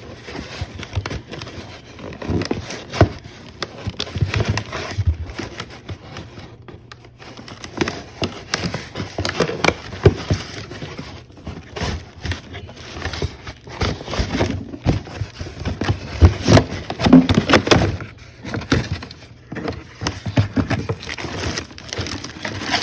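Irregular knocks, clicks and rustles of things being handled and moved about, with no steady machine sound.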